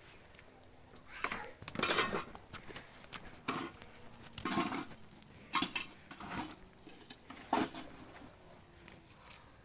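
Dishes and pots clattering and clinking as they are handled, in a series of irregular knocks with short pauses between them.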